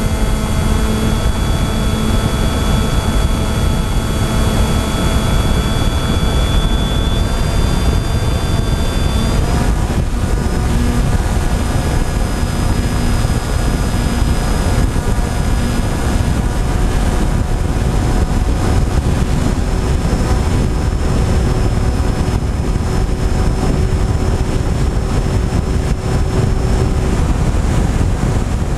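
Motor and propeller of a small FPV aircraft whining steadily, heard from its onboard camera under heavy wind rush. The whine steps up in pitch about seven seconds in and again about nine seconds in, as the throttle is raised.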